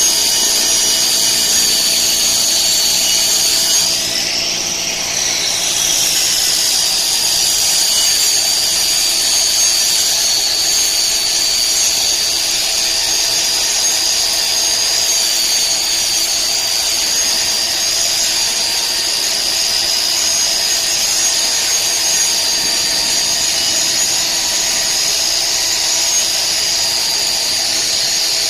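A power tool's high-speed motor running steadily with a high-pitched whine, its pitch shifting briefly about five seconds in.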